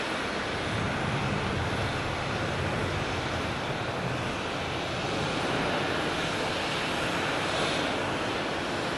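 Jet airliner's engines, a steady rushing noise with a low hum that fades away about four seconds in, over an even hiss of rain.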